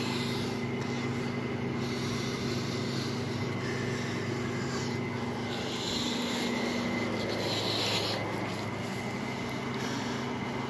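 A steady low mechanical hum with a faint steady high whine above it, and brief rustles as the phone is moved about.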